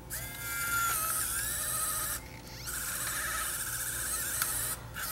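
Sony CCD-TR71 8mm camcorder's tape-loading mechanism running: its small motor and gear train whine in two runs of about two seconds each with a short pause between, as the tape is pulled out and wrapped almost 360 degrees around the head drum.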